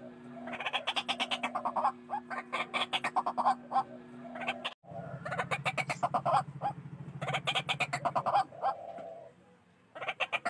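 White-breasted waterhen (ruak-ruak) calling loudly in repeated bouts of fast, harsh notes, each bout about a second long. It is a lure recording, with an abrupt cut just before the middle and a low buzzing underneath for a few seconds after it.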